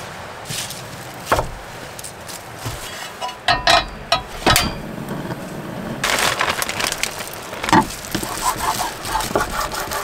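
Plastic bag and disposable plastic gloves crinkling as raw pork belly is handled, starting about six seconds in. A few sharp knocks of things set down on the wooden counter and cutting board come before and during it.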